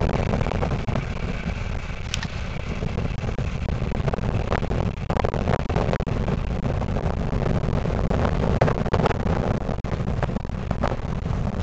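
Double-deck regional express train running away over the station tracks: a steady rumble of wheels on rails, with scattered clicks as the wheels cross rail joints and points.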